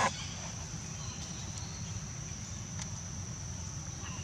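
Outdoor forest ambience: a steady, high-pitched insect drone over a constant low rumble. A brief noisy burst comes right at the start, and a few faint ticks follow.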